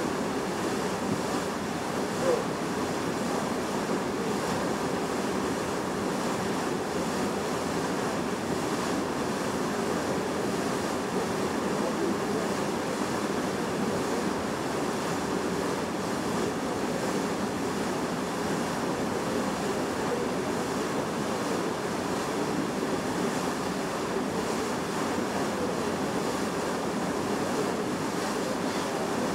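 Steady rush of sea water along the bow of a Hurtigruten coastal ship under way, mixed with wind on the microphone. One brief tap about two seconds in.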